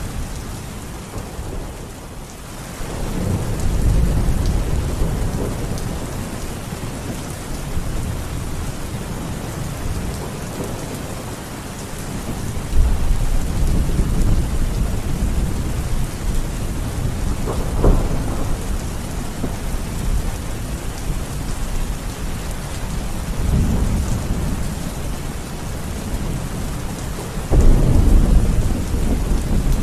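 Steady heavy rain with rumbles of thunder rolling in several times, one sharper crack about eighteen seconds in and a loud rumble near the end.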